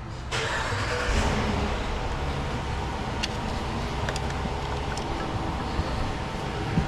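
Car driving, with steady road and tyre noise and a few short sharp ticks around the middle and one near the end.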